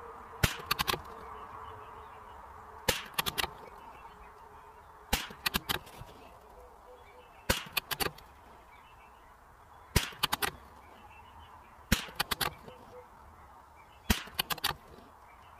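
A .22 LR bolt-action Savage Mark II FV rifle being fired about seven times, one shot every two seconds or so, each a sharp crack followed by a quick cluster of smaller cracks.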